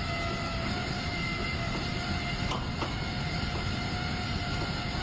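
Desktop gaming PC's cooling fans running very loud, like a jet engine: a steady rushing whoosh with a few faint constant whining tones through it.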